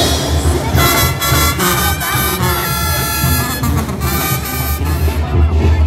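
Brass band music, with trumpets playing held notes over a steady bass.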